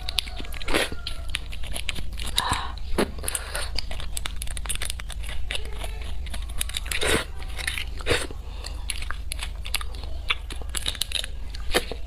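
Close-miked eating sounds: a small metal utensil clicking and scraping inside a roasted beef marrow bone as it digs at marrow that won't come out, with wet biting and chewing.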